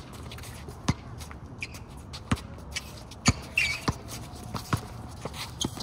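Basketball being dribbled on an outdoor asphalt court, a handful of irregularly spaced bounces, with players' sneakers shuffling and scuffing on the court.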